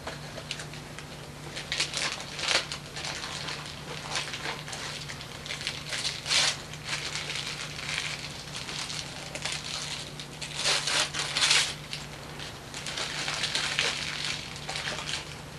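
Wrapping paper rustling and crumpling in irregular bursts as a present is handled and unwrapped, over a steady low hum.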